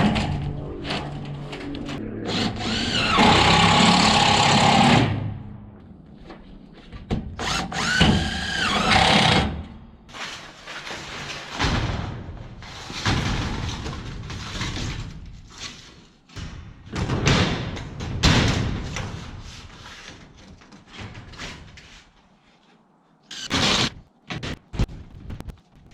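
Cordless drill driving screws through steel roofing sheets in repeated bursts; the motor whines up in pitch on the two longest runs, with music playing underneath.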